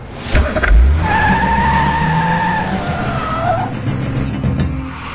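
Car engine revving as it takes off, with tyres squealing for about three seconds; the squeal drops in pitch just before it stops.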